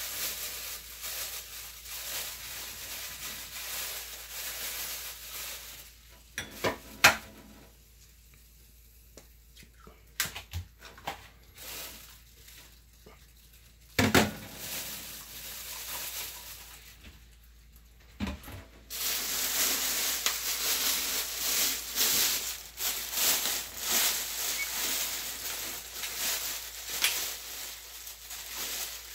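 Food sizzling in a frying pan, with a few sharp knocks of a utensil against the pan. The sizzle dies down for several seconds in the middle and comes back louder about nineteen seconds in.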